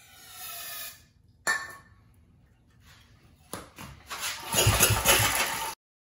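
10 hp Briggs & Stratton L-head engine being pull-started on its recoil rope near the end, the rope whirring out and the engine turning over with low thumps but not firing: it will not start. Before that, a short hiss in the first second and a couple of sharp clicks.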